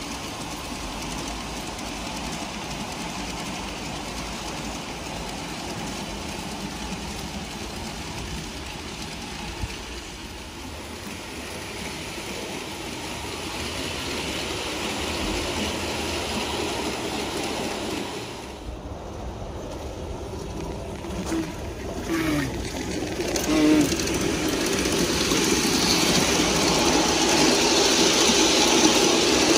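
G scale model trains running on garden track: a steady rush of wheels rolling on the rails. The sound dips briefly a little past halfway, has a few short squeals about two-thirds through, and grows louder over the last several seconds as a train comes closer.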